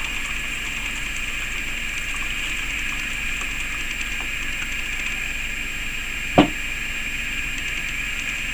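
Warm water poured from a saucepan into a metal tray, a faint trickle under a steady background hiss. A single sharp knock about six and a half seconds in.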